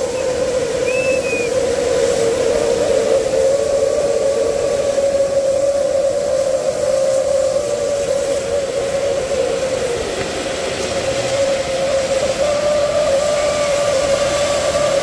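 Firework fountains spraying sparks with a loud, continuous hiss and a steady, slightly wavering whistle-like drone underneath.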